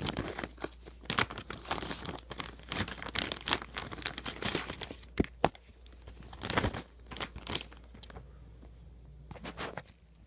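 Plastic bag and paper crinkling and rustling in irregular bursts while being handled, thinning out over the last couple of seconds.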